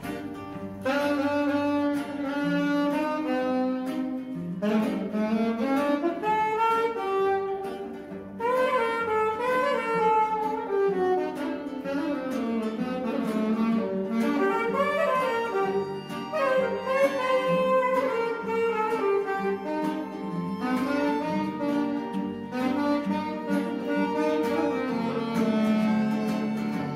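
Instrumental background music with a continuous melody line, no singing.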